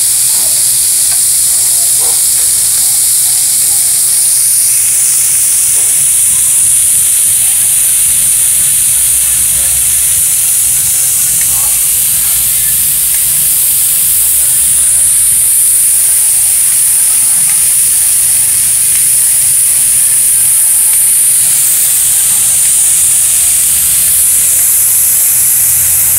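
Pork cuts (jowl, neck-shoulder and skirt meat) frying on a hot tabletop griddle over a gas burner, with a loud, steady sizzle of rendering fat.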